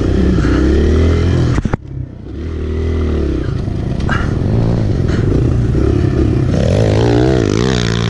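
Kawasaki KLX pit bike's small four-stroke single-cylinder engine revving up and down through the turns of a dirt track. The throttle is chopped briefly just under two seconds in, then picks up again, and the revs waver quickly up and down near the end.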